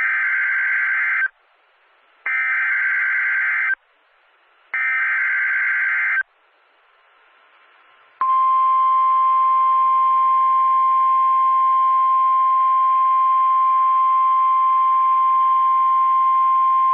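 Emergency Alert System tones: three bursts of SAME header data, each about a second and a half long and about a second apart, then a single steady high alert tone held for about nine seconds. The steady tone is NOAA Weather Radio's 1050 Hz warning alarm tone.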